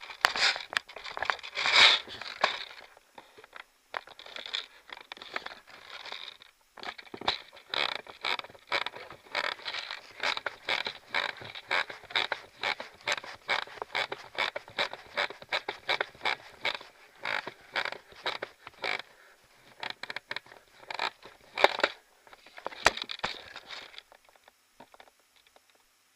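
Footsteps crunching through snow at a steady walking pace, with a few brief pauses.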